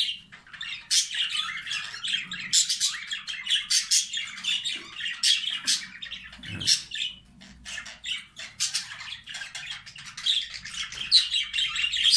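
Budgerigars chattering in their breeding cages: a continuous jumble of short, sharp chirps and calls from several birds at once.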